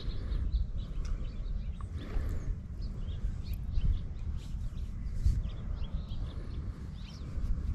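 Wind rumbling on the microphone, with scattered faint chirps of small birds.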